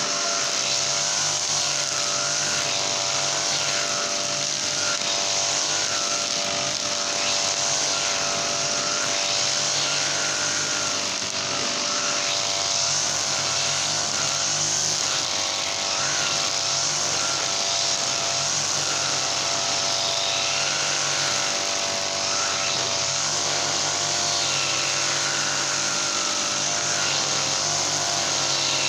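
Brush cutter's Honda GX35 four-stroke engine running steadily at high speed, its pitch wavering slightly up and down every second or two as it cuts grass.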